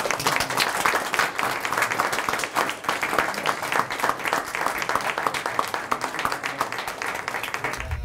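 A small group of people applauding, a dense run of hand claps that starts suddenly.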